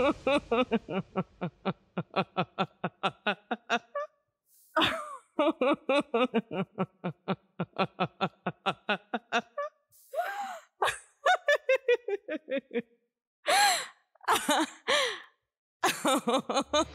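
A woman laughing long and hard: several runs of rapid 'ha-ha' pulses, about five a second, with loud gasping in-breaths between them. Some runs trail off falling in pitch.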